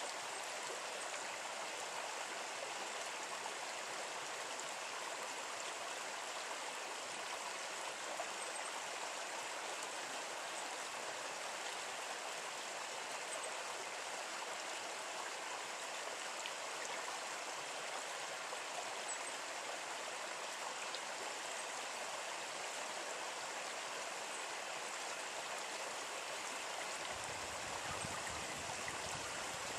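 Steady, even rush of running water, like a nearby stream, with a low rumble coming in near the end.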